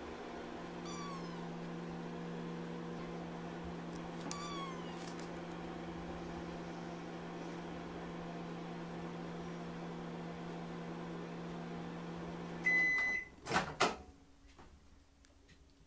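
Microwave oven running with a steady hum while kittens give small meows twice in the first few seconds. Near the end the hum stops, the microwave beeps once, and two sharp clunks follow.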